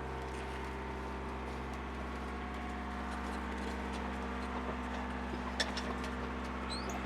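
A sailboat's auxiliary engine running steadily at motoring speed, a constant low drone, with a single sharp click about five and a half seconds in.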